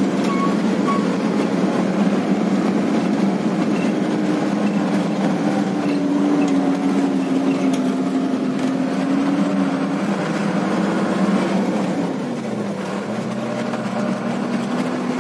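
Truck engine running steadily on the move, with road noise over it. About twelve seconds in the engine note drops and then settles a little lower.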